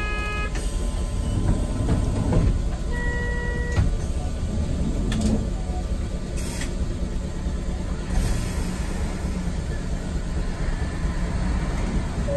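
Interior of a streetcar standing still: a steady low machine hum with street traffic under it. A short electronic beep sounds at the very start and again about three seconds in.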